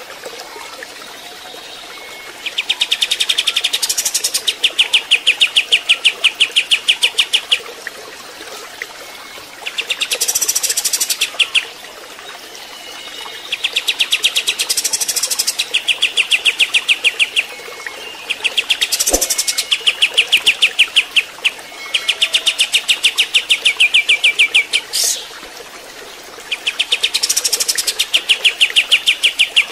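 Kapas tembak (a bulbul) song: bouts of fast, evenly repeated notes lasting a few seconds each, with short pauses between, over a steady hiss.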